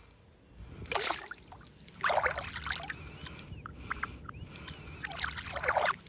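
Water splashing and sloshing in four short bursts.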